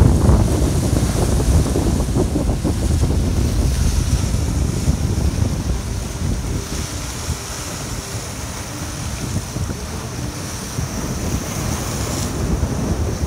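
Sea waves washing and breaking over rock boulders, with strong wind buffeting the microphone. The wind rumble is heaviest in the first half and eases off after about six seconds.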